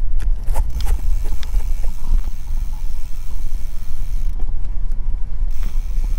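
Steady low rumble of wind and riding noise on the microphone of a handheld camera on a moving bicycle, with a few sharp clicks and knocks in the first couple of seconds.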